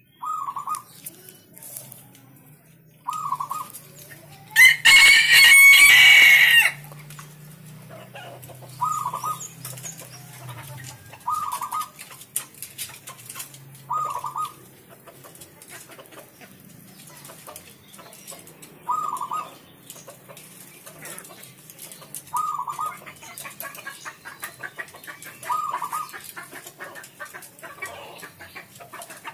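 Caged zebra dove (perkutut) cooing in its song: eight short, wavering coo phrases a few seconds apart. About five seconds in, a rooster crows once, the loudest sound.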